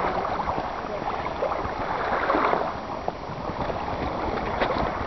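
Water lapping and gurgling against a canoe hull as the canoes move across the lake under sail, with wind on the microphone and a few small splashes and knocks.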